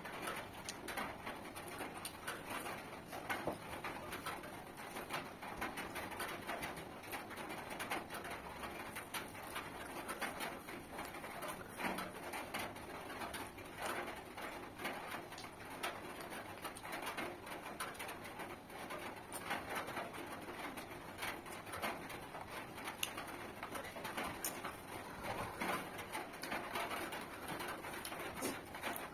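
Close-up eating sounds: chewing and lip smacks, and fingers squeezing and mixing cooked rice and curry on a banana leaf. It comes as a steady stream of small wet clicks and smacks.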